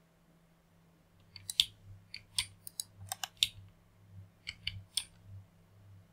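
Computer keyboard keys clicking in an irregular run of about a dozen keystrokes, from about a second in until about five seconds in, over a faint low hum.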